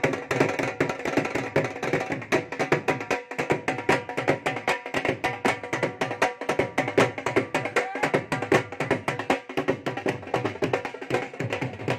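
Dhol drums beating a fast dhamal rhythm, a dense run of rapid strokes without a break, with a steady held tone underneath.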